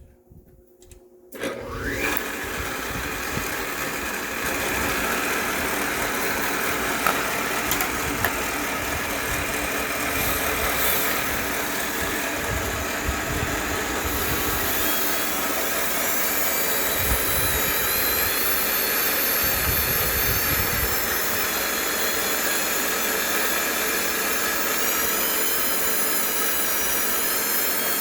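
Manual milling machine coming up to speed about a second and a half in, then running steadily as the end mill cuts a circular bore while a DeWalt cordless drill turns the rotary table.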